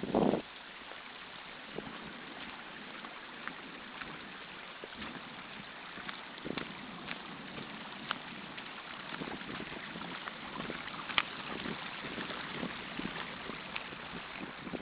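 Steady wash of rain and running rainwater, with scattered faint ticks and taps and a short low bump right at the start.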